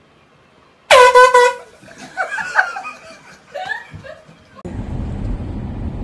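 An air horn blasts loudly about a second in, for under a second with two short breaks. Yelling voices follow. Near the end a steady low rumble sets in, like a car's cabin noise.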